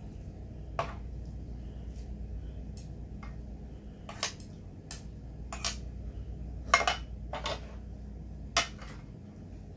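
Metal tongs and a ladle clinking against a stainless steel pot and bowl as ramen noodles and broth are served out: about eight separate sharp clinks, the loudest about seven seconds in, over a low steady hum.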